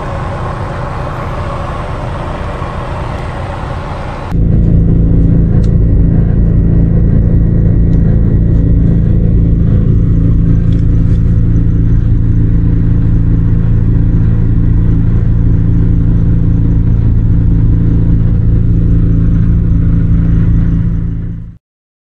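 Diesel air heater running: a loud steady drone with several steady low hum tones. It starts suddenly about four seconds in and cuts off just before the end.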